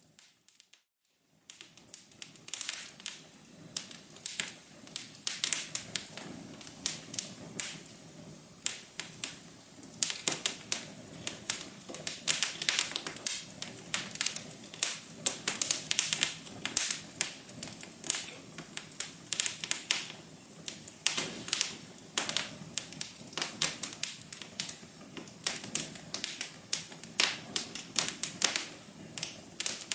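Wood fire crackling in a fireplace: irregular sharp pops and snaps, many a second, over a soft low hum. It starts after a brief silent gap at the very beginning.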